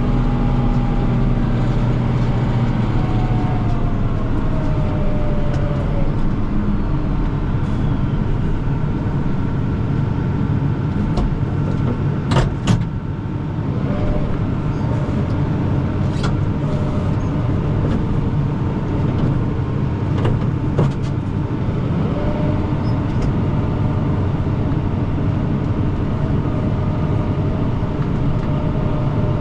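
Kubota M5-111 tractor's diesel engine running steadily, its pitch easing down a few seconds in. A few sharp knocks come through over the engine, the loudest a double knock about halfway through.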